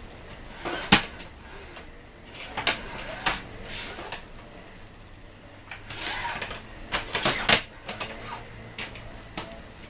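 Plastic clicks and taps from a pleated window shade's rail as it is pushed up and handled by hand, testing whether the restrung cord holds it in place. There is a sharp click about a second in and a quick cluster of clicks about seven seconds in.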